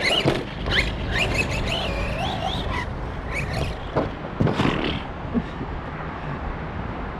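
Arrma Big Rock RC monster truck driving hard around a track: its electric motor whines up and down with the throttle over a rush of tyre and dirt noise. After about five seconds the whine fades and a steadier rush is left.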